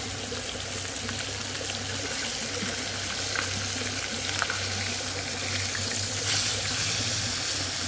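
Whole tilapia frying in hot oil in a skillet: a steady sizzle with a few small crackles.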